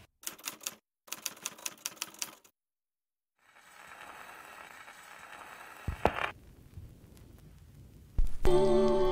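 Rapid typewriter-like clicking for about two seconds, then a pause. A soft hiss follows with a single knock, and near the end a low thump as a record player's stylus sets down on a spinning vinyl record, after which music starts.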